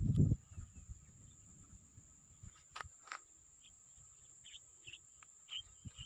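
Steady high-pitched insect drone over a quiet field, with a few short chirps in the second half. A brief low rumble cuts off within the first half-second.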